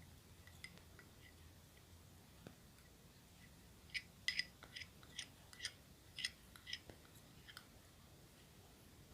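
A spoon clinking against a glass while stirring a drink: a quick run of about a dozen light, high clinks starting about four seconds in and lasting some three and a half seconds, with a few faint ticks before it.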